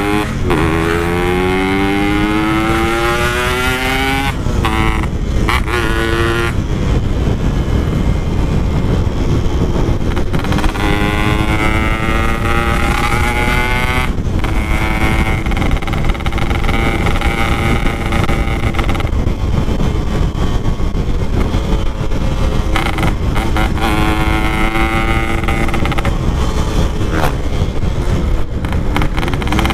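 Yamaha RX-King two-stroke motorcycle with a Packing Power exhaust, ridden hard. The engine pitch climbs steadily and then drops back sharply about seven times as it runs up through the gears.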